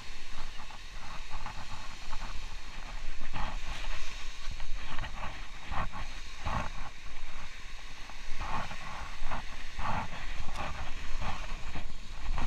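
Small waves washing onto a sandy beach, with wind rumbling on the microphone. Short, irregular swishes come and go from about three seconds in.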